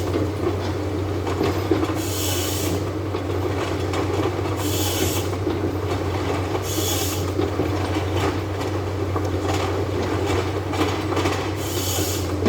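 Forestry harvester working eucalyptus: its engine runs steadily with a constant low hum, and a short high hiss comes in about every two to three seconds.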